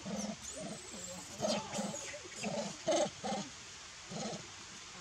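Macaques making a series of short, low calls in quick succession, with a few thin high squeaks early on.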